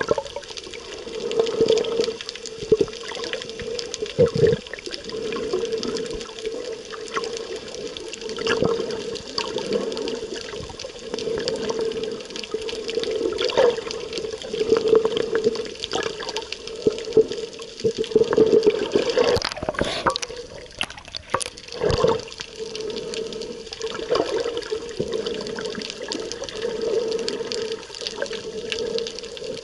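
Muffled underwater water noise picked up by a submerged camera: a hum that swells and fades, with scattered clicks and, about two-thirds of the way through, a few louder rushes of water.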